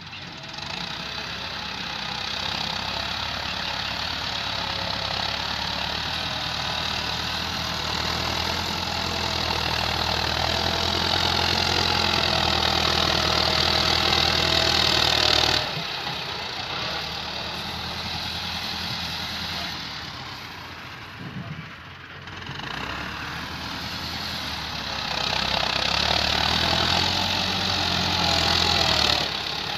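Massey Ferguson diesel tractor engine working hard under load as it strains to pull a loaded earth trolley out of soft ground. The engine note climbs steadily, drops abruptly about halfway through, then builds again near the end.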